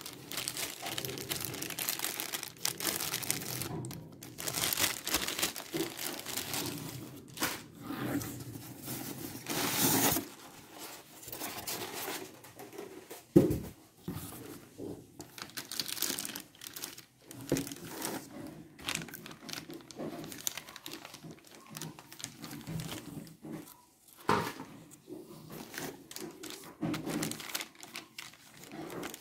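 Plastic packaging bags and wrap crinkling and rustling in hands while a boxed computer monitor is unpacked. There is a sharp knock about halfway through and a smaller one later.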